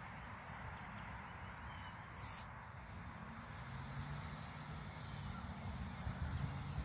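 A motor vehicle's engine hum building and growing louder over the last few seconds, over a steady background noise. A brief high hiss sounds about two seconds in.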